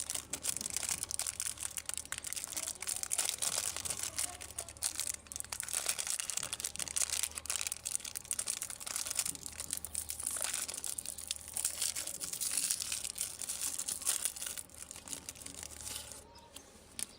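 Candy packaging being crinkled, crushed and torn open by hand: a dense, continuous crackle that fades out near the end.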